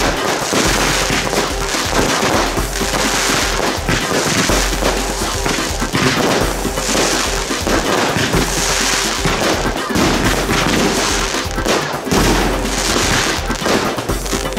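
Fireworks: aerial shells and stars bursting and crackling in quick succession, with no let-up.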